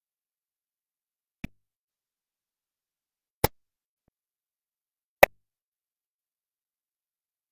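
Three sharp clicks about two seconds apart, each louder than the last, against dead silence.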